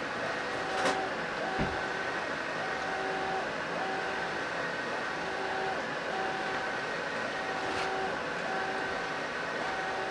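3D printer running a print: a steady hiss from its cooling fans, with stepper-motor tones that switch on and off about once a second as the print head moves, and two short clicks.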